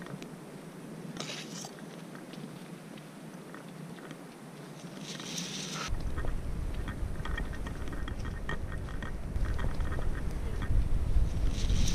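Tall reeds rustling in the wind, in short hissy bursts. About six seconds in, strong wind starts buffeting the microphone with a heavy rumble that grows louder, along with scattered small clicks and rustles.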